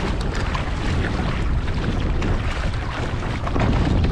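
Wind buffeting the microphone over water rushing and splashing along a moving kayak, as a string of sheepshead is dragged through the water beside the hull.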